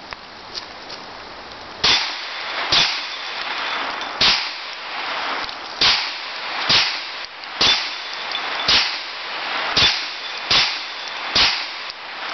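Hi-Point 995TS 9mm carbine firing ten single shots at an uneven pace of roughly one a second, starting about two seconds in, emptying its ten-round magazine.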